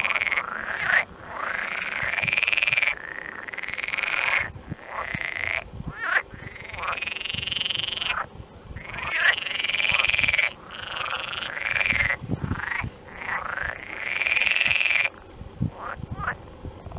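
A chorus of frogs calling: long, wavering, crying calls, one after another with short gaps between them.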